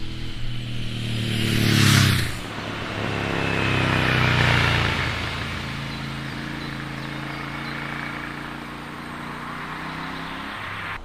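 Royal Enfield Interceptor 650's 648 cc parallel-twin engine, heard through its exhausts as the motorcycle rides past. A loud close pass peaks about two seconds in and drops off suddenly, then the engine note swells again and slowly fades as the bike rides away.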